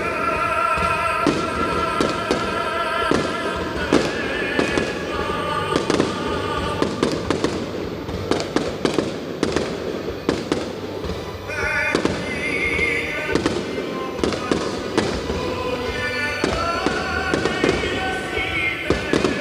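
Fireworks bursting in rapid succession, many sharp bangs and crackles one after another, over music playing alongside the show.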